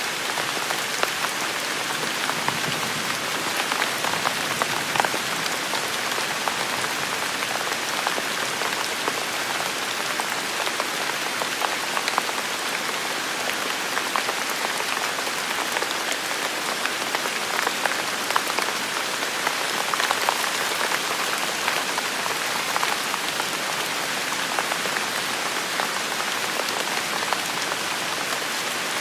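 Steady rain falling on a hard surface, an even hiss dotted with the ticks of single drops.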